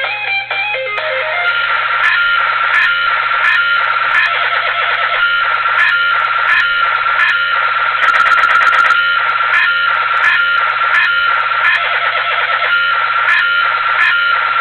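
Loud electronic dance music, a dubstep/electro-house track with a steady beat and a wavering, squealing synth lead.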